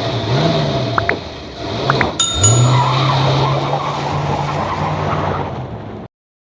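A car engine revving: its pitch climbs and drops about half a second in, then after a click at about two seconds it climbs again and holds high before cutting off abruptly.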